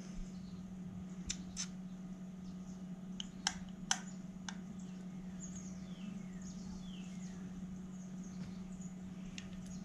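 A few light clicks and taps of a Honda Magna 750 carburetor and its small metal parts being handled on the bench, mostly in the first half, over a steady low hum.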